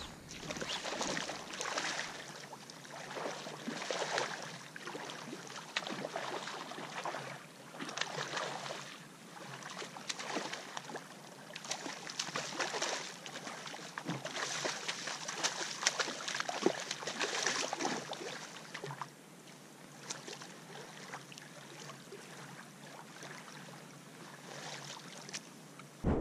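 Small waves lapping and washing over a gravel lakeshore close by, in surges every two seconds or so with small clicks, weaker in the last few seconds.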